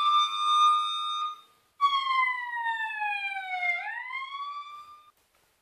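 A siren wail: a high tone rises and holds, breaks off briefly about a second and a half in, then slides slowly down and rises again before cutting off about five seconds in.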